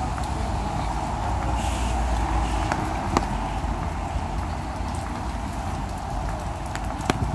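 Rainy city street ambience: a steady hiss of rain and cars passing on the wet road, with footsteps on wet paving. A few sharp ticks stand out, the loudest about three seconds in and another near the end.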